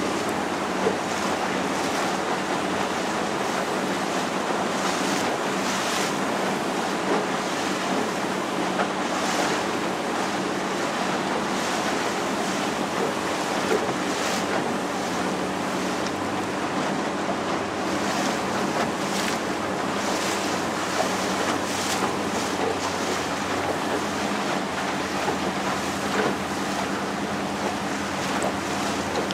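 Small motor boat's engine running steadily under the rush of water along the hull, with wind buffeting the microphone and brief splashes now and then.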